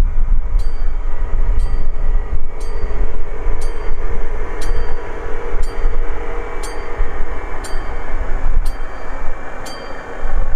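A train passing the station, a steady loud rumble with a sharp click about once a second.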